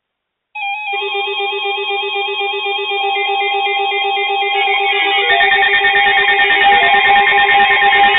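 Electronic music starts abruptly about half a second in: a ringtone-like plucked melody over steady held tones. It grows fuller, with a guitar-like texture, from about five seconds in.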